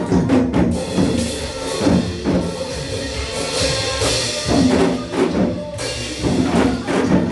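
Several janggu, Korean hourglass drums, struck together in a steady rhythm over a trot song playing from a recording.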